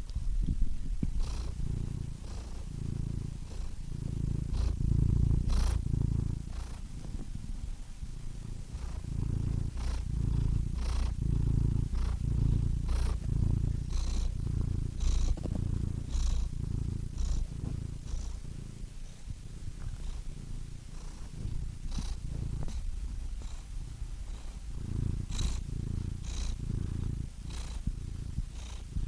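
Domestic cat purring close up, a low rumble pulsing in a steady rhythm of about one pulse a second, with scattered faint clicks.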